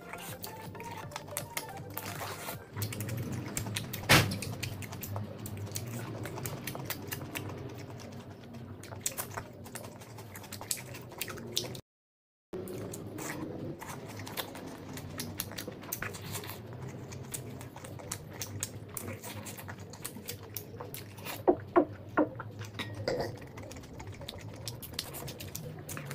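Close-up eating by hand: wet chewing and mouth sounds, with many small sharp clicks and squelches from fingers mixing rice and curry. One louder click about four seconds in, a few more clicks around three-quarters of the way through, and a brief cut to silence near the middle.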